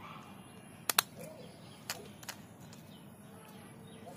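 Small plastic toy vehicle parts clicking as they are handled: a sharp double click about a second in, then a couple of lighter clicks.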